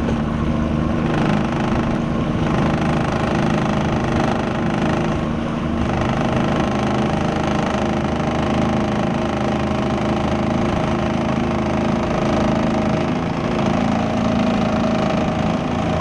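Motorboat engine running steadily, a loud, even drone with several low steady tones and no change in speed.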